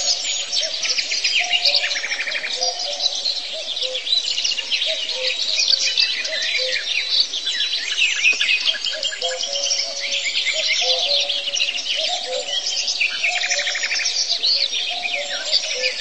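Dense chorus of many small birds chirping and trilling without a break, over soft background music with a slow, repeating melody of held low notes.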